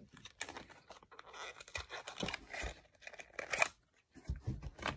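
Packaging being torn and crinkled by hand while unwrapping a small charging cable, in a quick run of rustles and clicks. A short pause near the end, then a few soft knocks.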